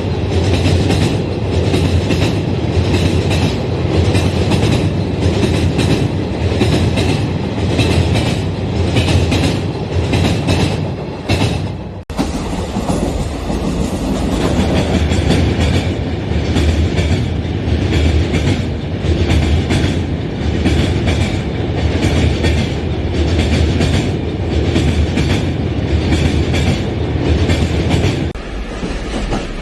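Passenger train running on track, with a steady rumble and a regular clickety-clack of wheels over rail joints. About twelve seconds in, the sound cuts out for an instant and then carries on.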